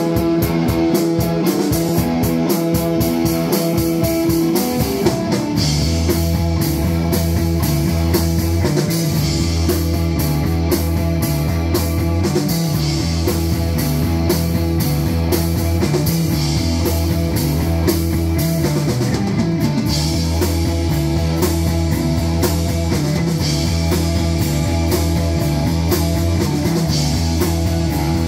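A live psychedelic rock band playing loud: electric guitars, a drum kit with constant cymbal hits, and a keyboard. Deep low bass notes come in about five seconds in and keep a steady pattern.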